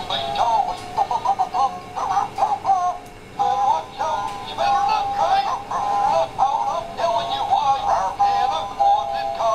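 Animated plush dog toy singing a high-pitched, synthetic-voiced Christmas song through its built-in speaker as it dances, with a brief pause about three seconds in.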